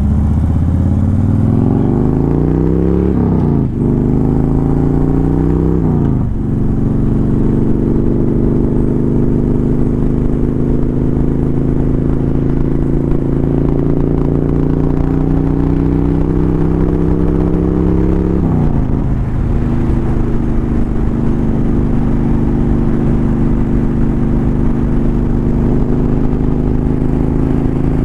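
Motorcycle engine accelerating up through the gears: the pitch climbs, drops at an upshift about four seconds in, climbs and drops again about six seconds in, rises slowly, and drops at a third upshift near nineteen seconds before holding steady.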